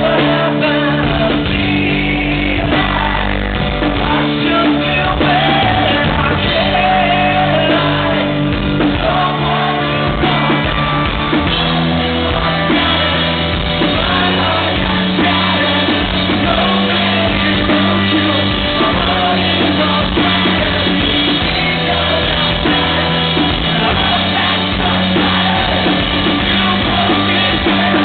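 Live rock song: a male singer belting into a microphone over a strummed acoustic guitar and band.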